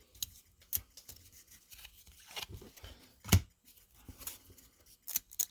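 Handling of 2001-02 Pacific Adrenaline hockey trading cards as they are flipped through: light paper rubbing with scattered short clicks and card snaps. The loudest snap comes about a third of the way in, and a couple of quick ticks come near the end.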